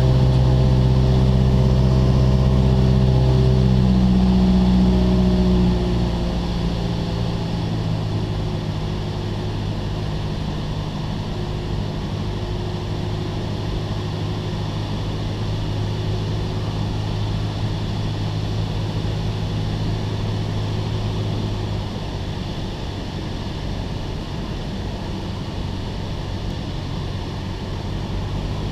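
Cessna 172SP's four-cylinder Lycoming engine and propeller running steadily, heard inside the cabin. About five seconds in the engine is throttled back for the approach: it gets quieter and its note drops, then drones on at reduced power with wind noise.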